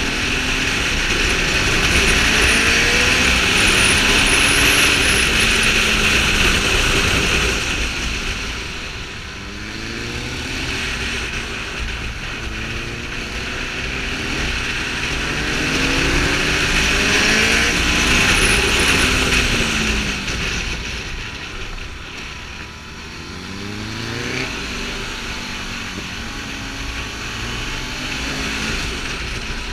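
Ducati Multistrada 620's air-cooled L-twin engine under way, its pitch rising through the revs and dropping at each gear change. It eases off twice, near nine seconds and again past twenty. Strong wind rush on the microphone swells with speed.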